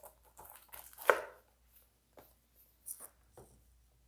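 A plastic Blu-ray case and its cardboard slipcover being handled and set onto a stack of discs on a wooden tabletop: light rustles and taps, with a louder knock about a second in and a couple of clicks near the end.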